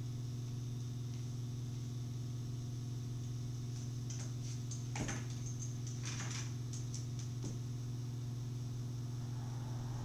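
Steady low electronic hum. About four seconds in, a few seconds of light metallic clinking and rattling from a handcuff chain, with one sharper click.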